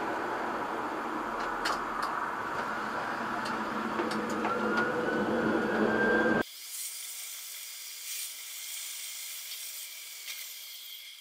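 Tram running, heard from inside the driver's cab, with a few light clicks and a whine that rises in pitch about four seconds in. About six seconds in the sound cuts off suddenly, leaving only a faint hiss.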